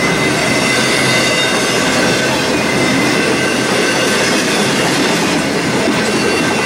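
Loaded railroad flatcars rolling past close by: a steady rumble and rattle of steel wheels on rail. A continuous high squeal from the wheels runs over it.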